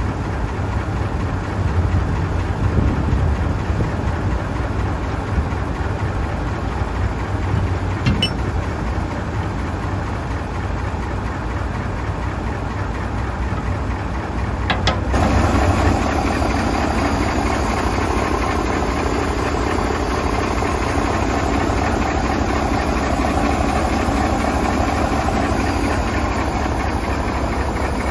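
Mitsubishi Fuso 8DC11 V8 diesel truck engine idling steadily. About halfway through, a click, after which the running sound gets louder and fuller.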